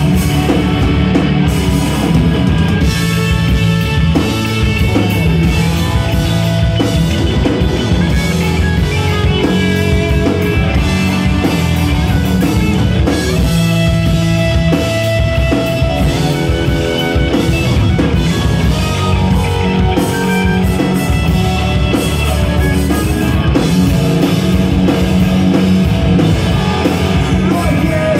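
Live punk rock band playing loud, continuous: distorted electric guitars over a drum kit.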